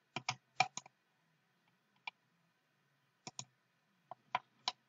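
Computer mouse clicking, about ten sharp clicks at irregular intervals, several in quick pairs, as the mouse wheel is clicked and scrolled to navigate and select in the 3D software.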